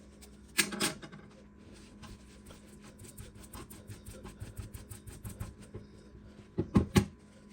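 Hands working on a stand mixer's opened gearbox, handling its parts and tools: a short clatter of knocks just under a second in, a run of small clicks and taps, then two sharp knocks near the end.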